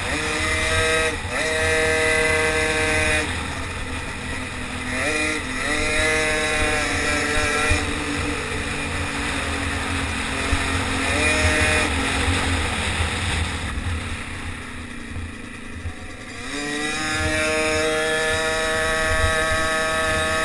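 Small racing motorized-bicycle engine heard onboard, held at high revs on the straights and dropping off for the corners several times. It goes weak for a few seconds about two-thirds through, then climbs back up and holds high. A steady low rumble runs underneath.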